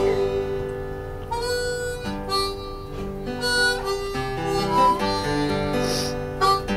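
Harmonica playing a melody of held, changing notes over strummed acoustic guitar chords.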